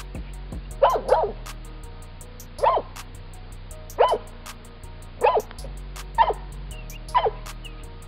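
A large white dog barking, about seven loud barks roughly a second apart, the first two in quick succession.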